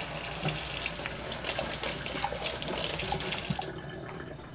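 Kitchen tap running water into a sink, shut off about three and a half seconds in.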